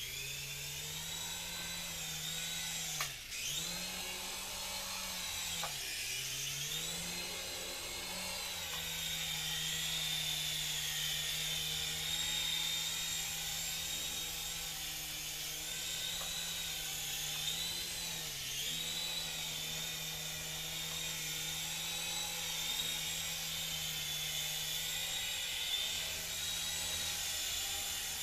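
Syma S111G small indoor RC coaxial helicopter flying, its electric motors and twin rotors giving a steady high whine. The pitch dips and rises again several times as the throttle is worked, most often in the first several seconds.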